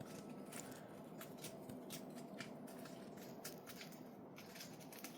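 Faint, irregular clicking and rustling of a budgie picking at and handling a rosebud with its beak.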